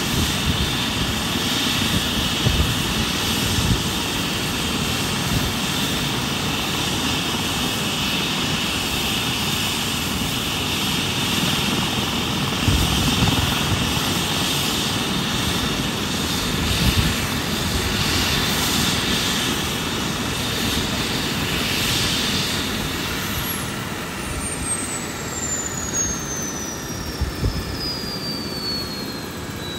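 Airbus EC135 twin-turbine helicopter running on the ground with its rotor turning: a steady turbine whine over rotor and engine noise. Near the end a high whine starts falling steadily in pitch as a turbine winds down, the start of the shutdown after landing.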